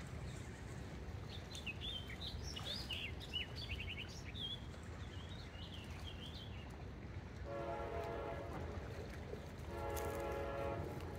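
Small birds chirping over a steady low rumble, then a long horn-like tone sounds twice, first about two-thirds of the way in and again near the end.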